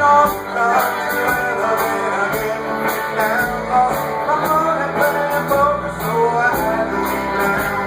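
Live band playing a rock song: a man singing over electric guitar, with a steady drum beat.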